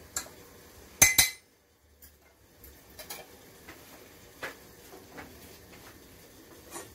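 Metal fork clinking and scraping against a stainless-steel couscoussier steamer basket as steamed vermicelli is fluffed, with one loud clatter about a second in, then scattered lighter knocks of the metal basket being handled.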